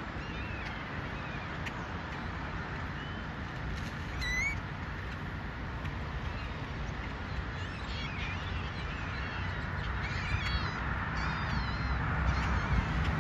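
A few short, high calls that bend in pitch, heard about four times, over a steady low background rush.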